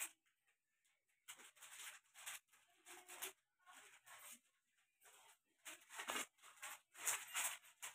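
Plastic packaging crinkling and rustling in irregular short bursts as bangles in a clear plastic sleeve are handled.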